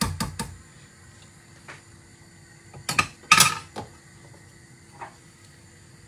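Metal ladle knocking and clinking against a stainless steel saucepan while stirring a simmering mixture. A few knocks come at the start, and a louder clatter follows about three seconds in.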